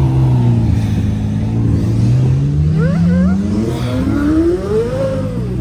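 A performance car's engine accelerating away, its pitch climbing steadily for about three seconds and then dropping off near the end.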